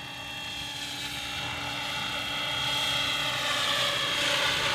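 Radio-controlled scale Robinson R22 helicopter in flight, a steady rotor and motor whine that grows louder as it comes closer, loudest near the end.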